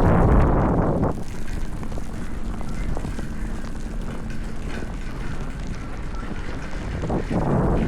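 Snowstorm wind buffeting the microphone, a steady low rumble with loud gusts at the start and again near the end.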